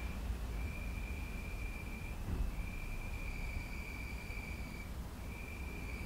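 Crickets in a tree trilling in long, steady high-pitched trills, each a second or two long with brief breaks between them, over a low background rumble.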